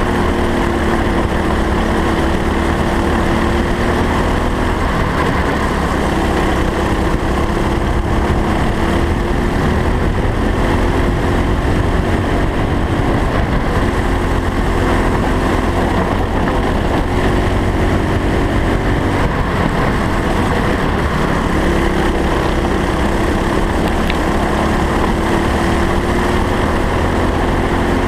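Racing kart engine at speed, its pitch climbing along each straight and dropping back for the corners several times over, above a steady low rumble.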